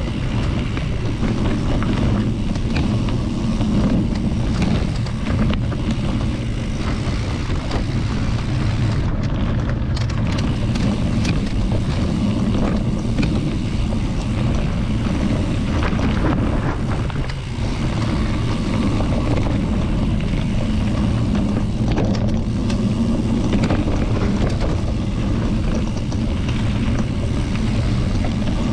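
Steady wind buffeting on the microphone while moving fast along a dirt forest trail, with scattered small clicks and rattles.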